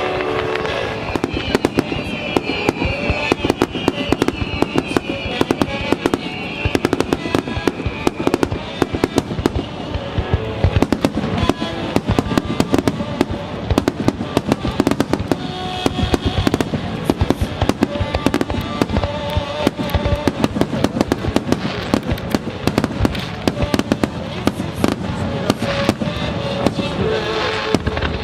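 Fireworks display: a long, dense barrage of shells bursting in rapid succession, bangs and crackling packed closely together.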